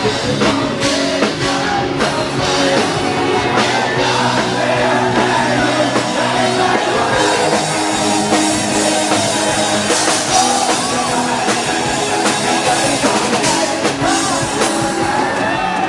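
Live rock band playing loudly, with a drum kit and singing over it.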